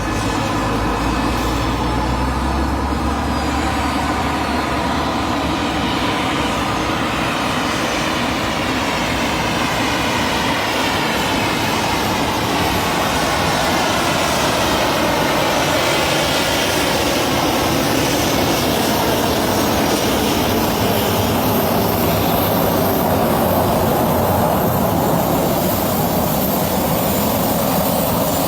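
Jet airliner's engines running loud and steady as it flies its landing approach, growing slightly louder toward the end.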